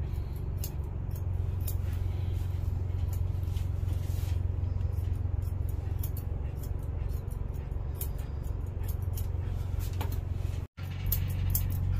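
Electric dog grooming clippers running with a steady low hum, with scattered short high clicks as the coat is worked. The sound cuts out for an instant near the end.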